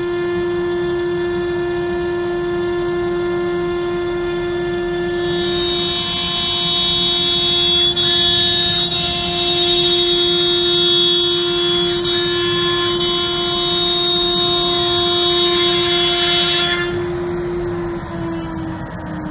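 CNC router spindle running with a steady high whine while it cuts MDF, with a hiss from the cut and the dust extraction. Near the end the hiss stops suddenly and the whine slides a little lower in pitch.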